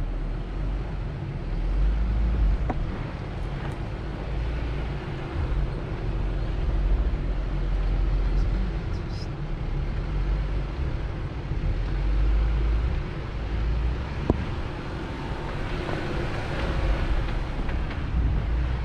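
Vehicle driving slowly down a trail: a steady low rumble of engine and tyres, with a few faint clicks.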